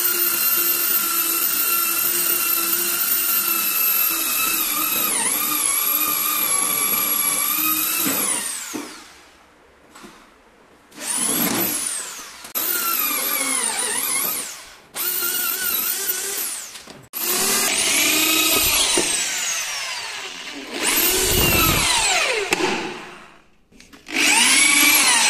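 Corded electric drill boring into teak wood blocks. The motor runs steadily, then winds down about eight seconds in. It is then run in five or six short bursts of a second or two, each spinning up and slowing again, as it drills pilot holes so the teak does not split when nailed.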